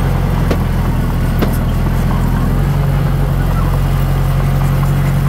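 Diesel engine of heavy earthmoving equipment running steadily, its note shifting about halfway through, with a couple of sharp knocks in the first two seconds.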